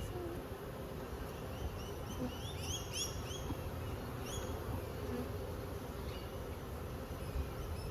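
Honeybees buzzing steadily around an opened hive, with a few short high chirps about three seconds in.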